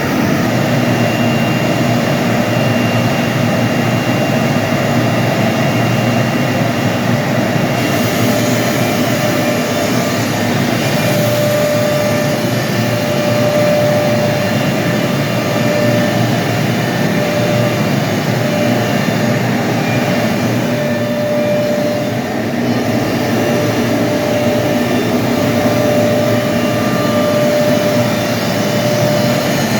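CNC milling machine running: a steady loud machine noise of spindle and cutting, with a tone that comes and goes from about a third of the way in.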